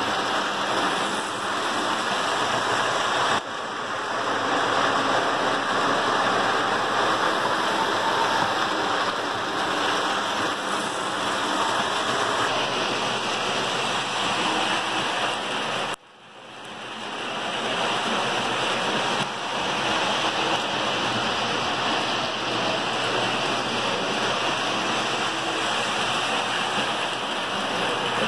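Postwar Lionel O-gauge toy trains running on three-rail track: a steady rolling rumble of wheels and motors. It drops out for a moment about sixteen seconds in.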